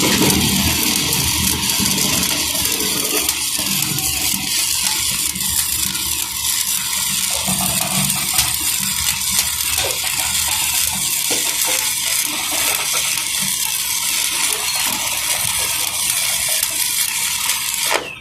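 Electric welding arc crackling and sizzling steadily, a dense run of tiny crackles that cuts off suddenly near the end as the arc is broken.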